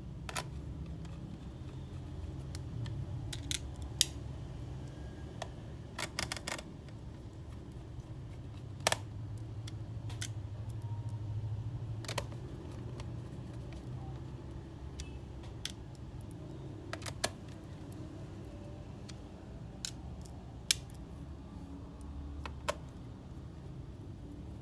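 Scattered sharp clicks and taps of small tools and parts being handled during laptop work, with a quick run of clicks about six seconds in, over a steady low hum.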